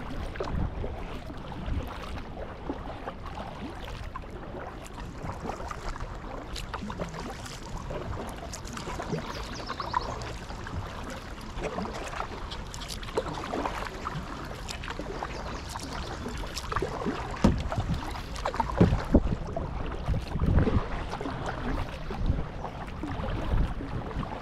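Kayak paddle strokes in river water: the blades dip and splash, with water trickling and dripping off them, and a few louder splashes or knocks in the second half.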